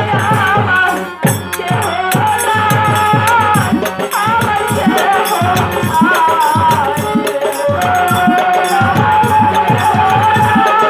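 Live Baul folk song: a woman's voice singing with wavering ornaments, over harmonium, a hand drum whose bass strokes bend downward in pitch, and rattling percussion keeping a quick beat.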